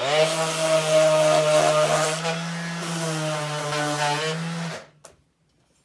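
DeWalt random orbit sander running on a wooden board: a steady motor whine with the hiss of sandpaper on wood. It spins up at the start and switches off near the end.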